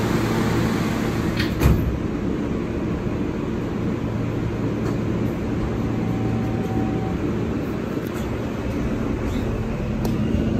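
R160 subway car doors sliding shut with a sharp knock about two seconds in, then the car's steady rumble and hum as the train starts to pull out of the station.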